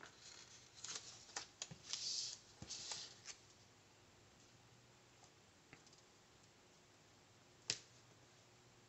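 Faint handling of a paper planner and its stickers: rustling and light taps as the planner is shifted and stickers are placed, busy for the first three seconds, then quiet apart from one sharp tap near the end.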